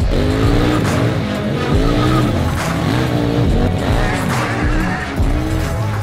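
KTM 790 Duke's 799 cc parallel-twin engine, breathing through an Akrapovič exhaust, revving up and falling back over and over as the bike is drifted, mixed with background music with a steady beat.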